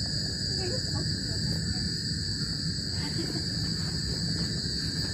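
Night chorus of crickets and other insects, a steady trilling at several high pitches, over a low continuous rumble.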